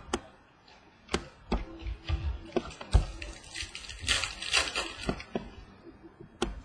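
Trading cards being handled and flipped through: a run of sharp clicks and taps, with a denser papery rustle about halfway through.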